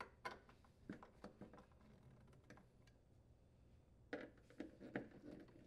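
Faint scattered clicks and ticks of a nut driver turning hex-head sheet metal screws in the ice maker's plastic bottom mounting bracket, as the screws are retightened; the clicks bunch together about four seconds in.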